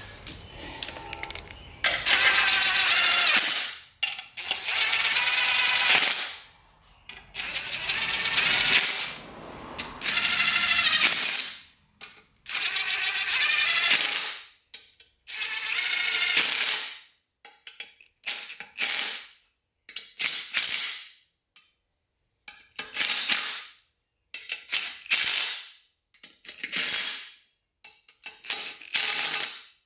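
Cordless impact driver with an extension running M10 flange-head bolts into an aluminium adapter plate on a transmission bell housing. It runs in bursts: six of one to two seconds in the first half, then many shorter ones as the bolts are snugged down.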